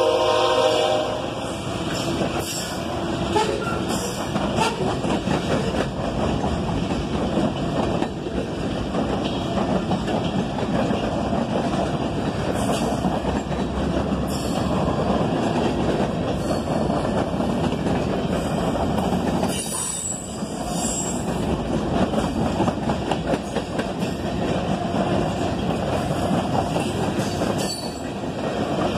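Freight cars rolling past at close range: a steady rumble of steel wheels on rail with scattered clicks and clanks, and a brief high wheel squeal about two-thirds of the way through. The tail of the locomotive's horn cuts off about a second in.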